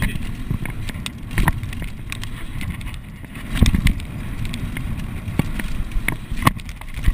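Specialized mountain bike ridden fast downhill on a dirt and grass trail: a steady low rumble of wind and tyres on the ground, broken by frequent knocks and rattles from the bike over bumps, heaviest about three and a half seconds in.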